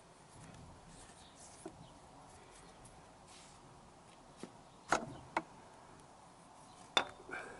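A few sharp clicks and knocks as a motorcycle alternator is handled and worked into its housing on the engine, three of them close together in the second half, the loudest near the end.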